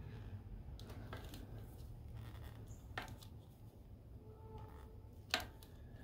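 Faint clicks and light scraping as hands work a spark plug in the cylinder head of a Harley-Davidson Milwaukee-Eight engine, over a low steady hum. There is a sharper click about three seconds in and the loudest click a little after five seconds.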